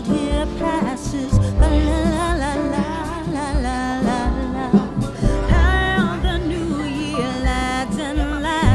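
Background music: a song with a lead singer holding a wavering melody over a heavy bass line.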